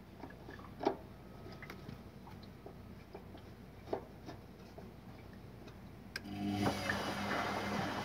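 Korting front-load washing machine running a wash, its motor and drive belt turning the drum back and forth: a low steady hum with scattered light clicks, getting louder about six seconds in. The machine is running normally again after its control board was repaired.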